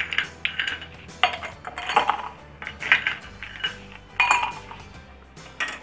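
Ice cubes being spooned from a glass bowl into a drinking glass: an irregular series of sharp clinks and knocks of ice and spoon against glass.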